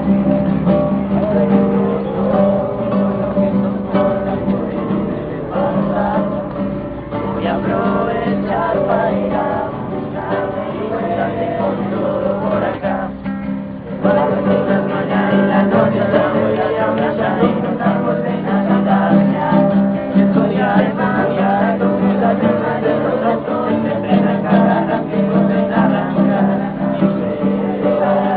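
Several young voices singing together to a strummed acoustic guitar, with an abrupt break in the recording just before halfway.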